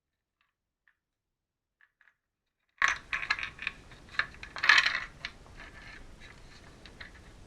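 Near silence, then from about three seconds in a run of sharp, light clinks and rattles of small metal objects being handled, with the loudest clinks at the start and about two seconds later.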